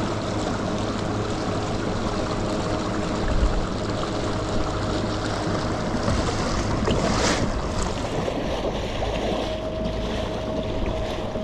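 Kayak running at speed under a Newport NK300 electric outboard near full power: a steady rush of water along the hull and wind on the microphone, with a faint steady motor whine. A short louder rush of noise comes about seven seconds in.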